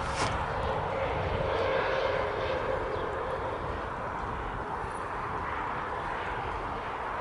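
Case CX240B excavator's Isuzu diesel engine running steadily, with a steady whine over the engine noise and a click right at the start.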